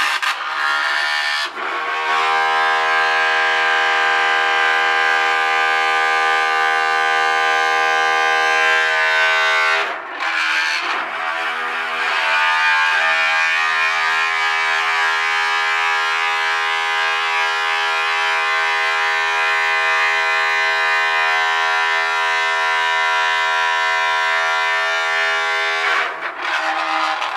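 Children's electric toothbrush vibration motor buzzing loudly in the aluminium foil takeaway tray it is glued into, a steady pitched buzz with many overtones. It breaks off briefly about ten seconds in, then buzzes on steadily until it stops near the end.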